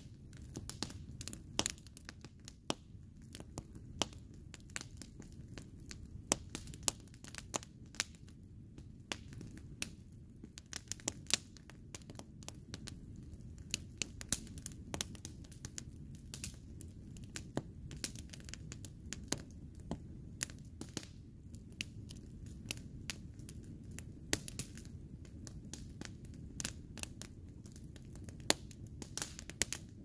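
Wood campfire of burning pallet boards crackling, with irregular sharp pops over a steady low rush from the flames.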